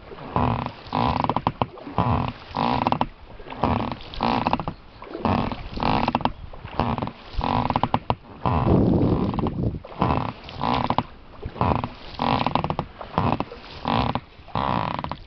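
Oars of an inflatable rowing boat creaking in their rowlocks with each stroke, a repeated creak about once or twice a second.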